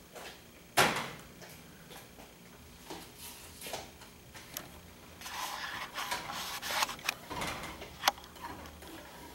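A cleaning rod carrying an acetone-soaked patch is pushed through a .30-06 rifle bore, with scraping and rubbing and a few sharp clicks of the rod against the metal. A sharp clack about a second in is the loudest sound.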